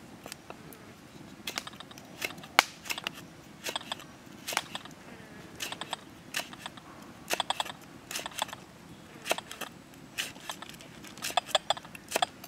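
Kitchen knife slicing shallots and garlic on a round wooden log chopping block: sharp taps of the blade on the wood, coming in quick irregular clusters of a few strokes with short pauses between.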